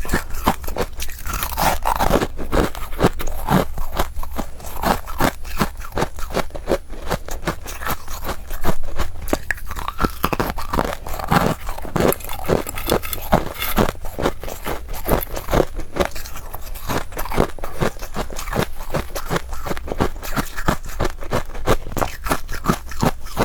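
Close-miked crunching and chewing of soft, powdery freezer frost, a dense run of crackly bites and crunches with some scraping.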